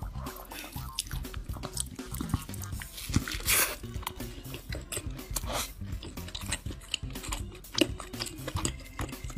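Close-up eating sounds of a beef hamburger with lettuce: wet chewing with many small crackles and smacks, and one louder crunchy bite about three seconds in.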